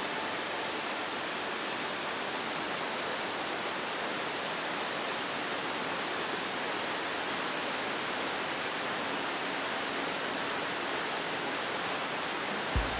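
Waterfall or fast mountain stream rushing steadily, an even hiss of falling water with little deep rumble.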